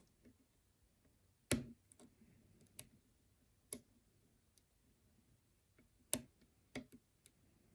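Lock pick and tension wrench working the pins of a challenge lock: about seven sharp, irregular metal clicks as pins are probed and set, the loudest about a second and a half in and again about six seconds in.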